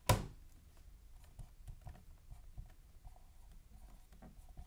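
A single sharp knock at the very start, then a dry-erase marker squeaking and scratching faintly in short strokes as figures are written on a whiteboard.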